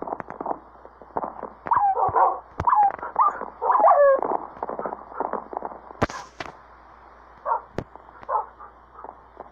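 A dog whining and yelping: a run of short cries that rise and fall in pitch in the first half, then a few weaker ones near the end, among scattered clicks and taps.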